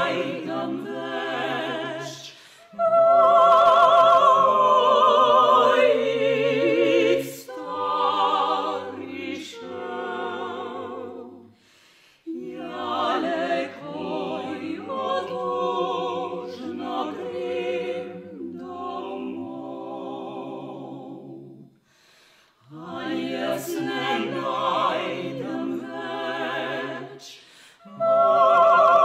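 Classical vocal quartet of three women and a man singing in operatic style, several voices together, with two brief pauses between phrases about 12 and 22 seconds in.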